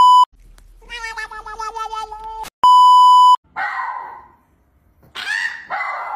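A loud steady 1 kHz TV test-pattern beep cuts off just at the start, a wavering pitched cry follows, and then the beep sounds again for just under a second. After it, a small dog gives short vocal cries.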